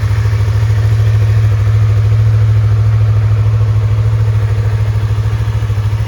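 2020 Yamaha MT-03's parallel-twin engine idling steadily with an even, rapid pulse, which the seller calls sounding perfect.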